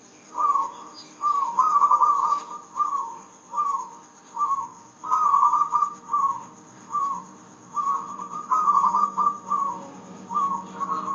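Javanese zebra dove (perkutut) singing its cooing song. Quick warbling trills alternate with single short coos, repeated with brief gaps.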